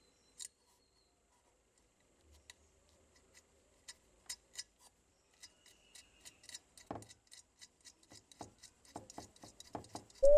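Faint metallic clicks and taps from the lid hinge of an antique charcoal iron as a pin is fitted into it by hand. The clicks are sparse at first and come quicker toward the end, with one duller knock about seven seconds in.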